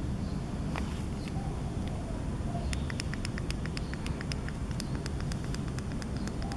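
A quick, irregular run of small sharp clicks starts a little under three seconds in, over a steady low hum: the button pad of an e-bike LCD display being pressed repeatedly to step through its settings.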